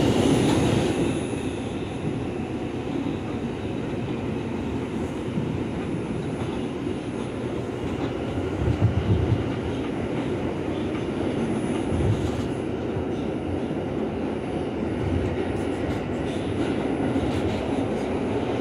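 Ride noise inside an R142 New York City subway car moving through a tunnel: a steady rumble of wheels on the rails, with a louder jolt about nine seconds in.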